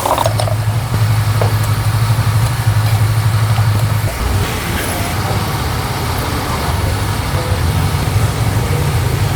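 An engine running steadily with a low drone, easing slightly about four seconds in.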